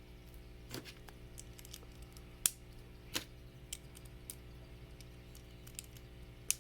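Small plastic Lego pieces being handled and snapped together: scattered light clicks and taps, the sharpest about two and a half seconds in.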